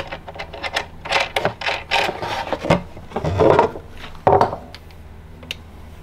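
A hand-held hex driver unscrews the Allen screws on a lithium battery's terminal posts, and the cable lugs are handled off them: a run of scrapes, rubs and clicks over the first four seconds or so. After that only a few light ticks are heard.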